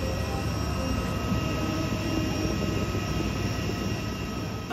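Jet airliner running on the apron: a steady rumble with several steady high whining tones over it.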